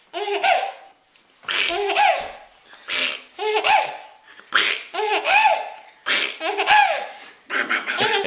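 A baby laughing in about six high-pitched bursts, roughly one a second, each rising and falling in pitch.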